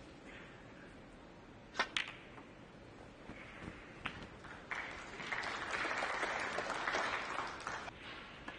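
Snooker balls clicking: two sharp strikes close together about two seconds in and a few lighter clicks after, then audience applause for about three seconds.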